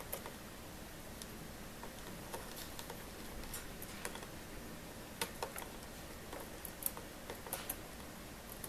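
Scattered light clicks and taps at irregular times, from a small parrot's claws and beak knocking on a hard glossy plastic surface and a small ring. The clicks are louder a little past halfway and again near the end, over a faint steady hiss.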